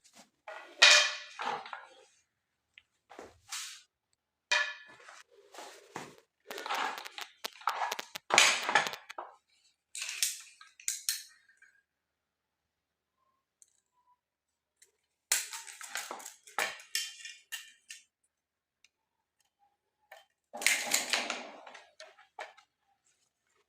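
Bursts of clattering and knocking: hard objects being handled, knocked together and set down, several clusters of sharp clicks with silent gaps between.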